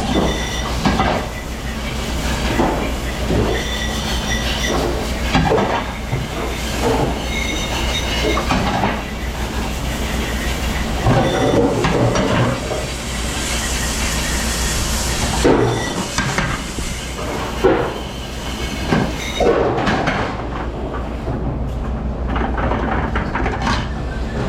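Commercial dish pit: a dishwashing machine running with a steady low hum, while dishes, racks and cutlery clatter and clink irregularly, with a stretch of spraying hiss about halfway through.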